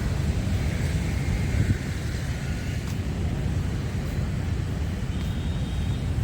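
Steady low rumble of city traffic going by.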